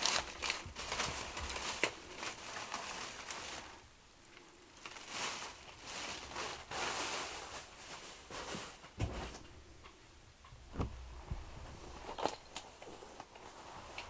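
Crinkly rustling and crunching of a bag being handled by hand, with sharp crackles, then a few dull knocks in the second half.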